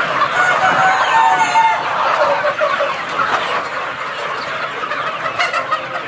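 A large flock of Sonali chickens clucking and calling over one another in a dense, constant chorus.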